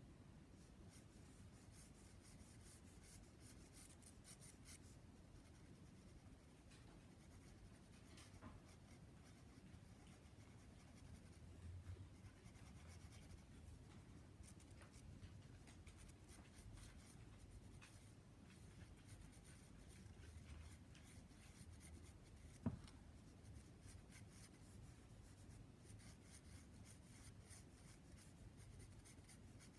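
Faint scratching of a graphite pencil on sketch paper as light strokes are drawn, coming in spells. A single sharp tap a little over two-thirds through.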